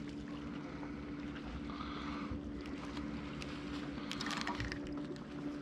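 A hooked walleye splashing faintly at the water's surface beside the boat as it is reeled in, with a few scratchy splashes about four seconds in, over a steady hum.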